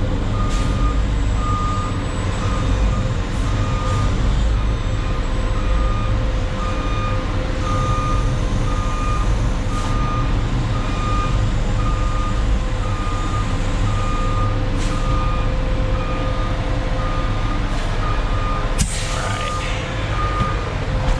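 Concrete mixer truck backing up: its reversing alarm beeps about once a second over the steady running of the diesel engine. A short hiss of air comes near the end.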